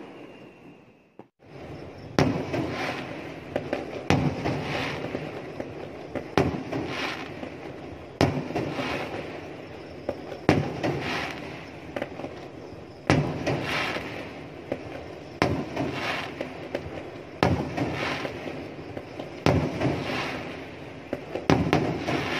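Aerial fireworks bursting in a steady volley, a sharp bang about every two seconds, each followed by a crackling tail. A brief hush comes about a second in, before the volley starts.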